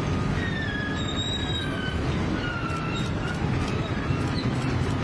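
Amphibious excavators' diesel engines running with a steady low rumble. Their steel pontoon crawler tracks give thin, high squeals that slide downward in pitch, several times.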